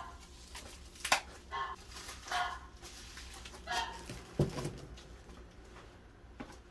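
A dog giving four short, high cries, spread across a few seconds. A sharp click sounds about a second in and a low thump just after four seconds.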